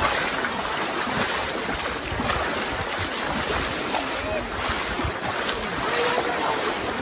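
A large crowd wading and splashing through shallow muddy water while plunging bamboo basket traps and nets, with scattered voices calling and some wind on the microphone.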